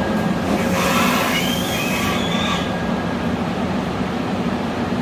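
Commuter electric train standing at a metro platform with a steady low hum. About a second in, a hiss with high, wavering tones lasts about two seconds as the train and platform screen doors close.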